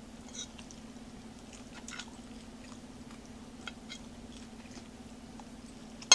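Close-up chewing of a leafy salad: soft, wet mouth clicks and smacks over a steady low hum, with a fork striking the ceramic plate once at the very end.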